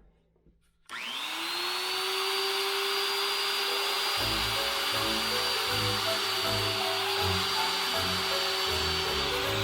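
An electric workshop motor switched on about a second in, spinning up quickly to a steady high whine over a hiss and running on. Background music with a steady beat comes in about four seconds in.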